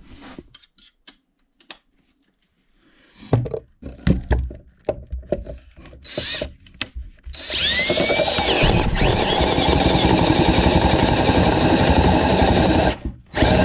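Scattered clicks and knocks, then a power drill spins up and runs steadily, boring a hole through wood inside a wall for wiring. It cuts off near the end.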